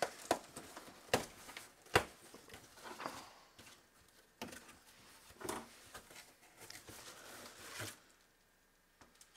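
Cardboard box being opened and handled: a few sharp knocks and taps in the first two seconds, then rustling and crinkling of packaging and bubble wrap as a wrapped parcel is lifted out.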